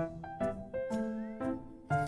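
Background piano music: a light melody with a new note or chord about every half second.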